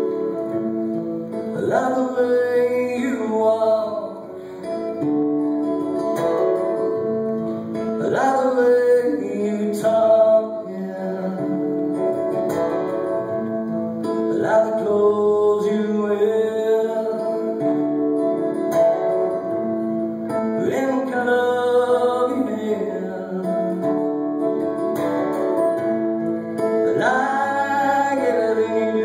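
An acoustic guitar strumming with a fiddle playing a tune over it, with notes that slide up into phrases every few seconds.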